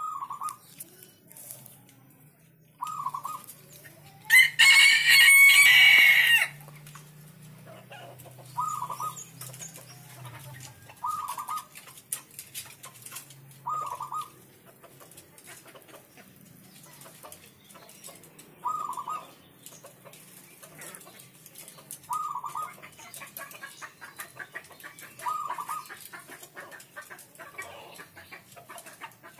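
Zebra dove (perkutut) cooing: eight short phrases, each about half a second, repeated roughly every three seconds. About four seconds in, another bird gives a much louder call lasting about two seconds.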